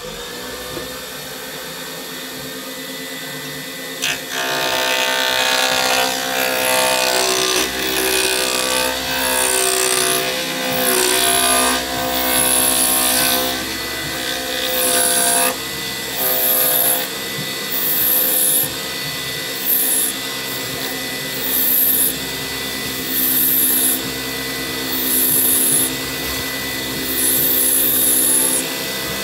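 Lathe running steadily with a motor whine while a turning tool cuts a spinning cast-resin pen blank. The cutting starts about four seconds in as a harsh scraping hiss, then comes in repeated passes roughly every two seconds.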